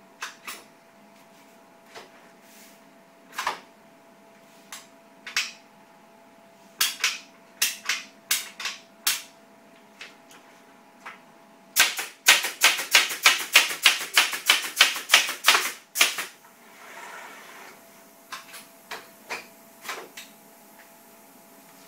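Sharp mechanical clicks and snaps from a canvas-stretching machine being worked. Scattered clicks come first, then about halfway through a rapid, loud run of four to five a second lasts some four seconds before the clicks spread out again. A faint steady hum runs underneath.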